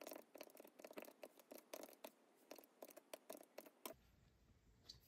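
Faint, rapid, irregular clicks of a Texas Instruments TI-34 MultiView calculator's buttons being pressed as a sum is keyed in, stopping about four seconds in.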